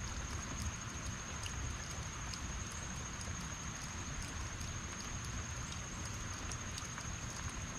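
Heavy rain falling steadily: an even hiss with many close drops ticking, over a low rumble. A steady high-pitched whine sits above it.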